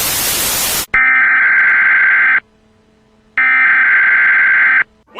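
Electronic intro sound effects: a burst of loud static hiss that cuts off abruptly, then two long buzzy electronic tones like a telephone or buzzer signal, each about a second and a half long, with a second's gap between them.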